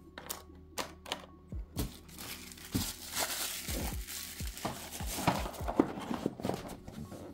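Plastic packaging crinkling and crackling as it is handled, for several seconds in the middle, after a few short knocks from the box and tray being moved.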